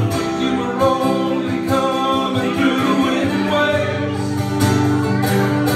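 Live acoustic music: two acoustic guitars strummed while a man sings into a microphone.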